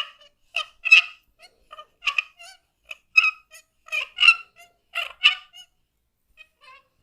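A quick, irregular run of short hollow slaps and claps from cupped massage hands tapping on the neck and shoulders, each stroke with the same ringing pitch. They stop about five and a half seconds in, with a few faint taps near the end.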